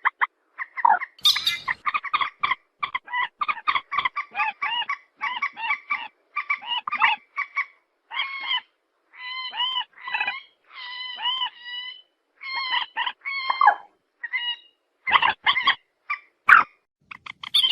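White-breasted waterhen calling: a long run of short, harsh, nasal calls repeated in quick series with brief pauses between the runs.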